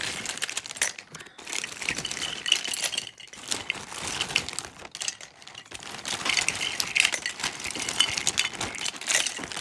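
A hand rummaging through a heap of loose pencils and small party favors, with the pencils clicking and rattling against one another in a dense, irregular clatter.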